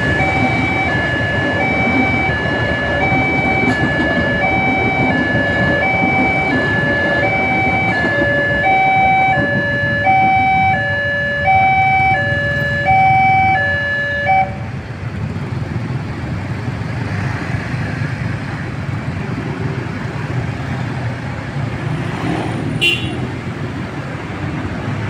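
Railway level-crossing warning alarm sounding two alternating electronic tones, high then low, a little more than once a second, over the running engines of waiting motorbikes. The alarm cuts off suddenly about fourteen seconds in, as the crossing clears after the train, leaving motorcycle traffic noise.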